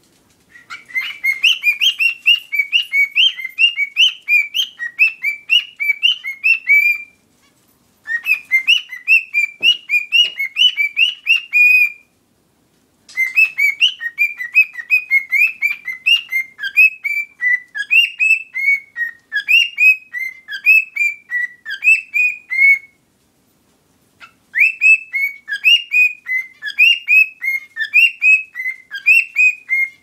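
Cockatiel singing: a rapid string of short whistled chirps, about two notes a second, in four long runs broken by pauses of about a second.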